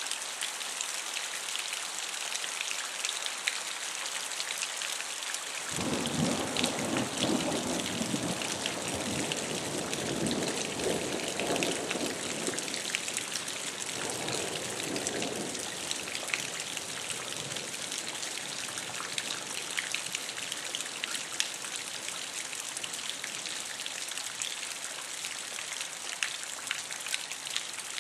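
Steady heavy rain during a thunderstorm, with individual drops ticking throughout. About six seconds in a long roll of thunder starts suddenly and rumbles for about seven seconds, followed by a shorter rumble a little later.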